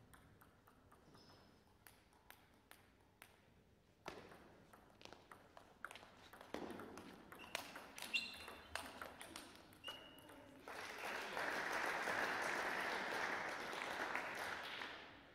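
Table tennis ball clicking off the bats and table, a few bounces and then a rally, echoing in a sports hall. From about ten seconds in, applause until near the end.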